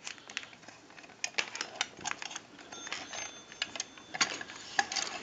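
Irregular light clicks and knocks of a rotary desk telephone's housing and chassis being handled and turned over in the hands.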